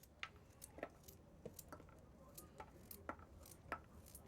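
Near silence with a scattering of faint, irregular clicks and taps.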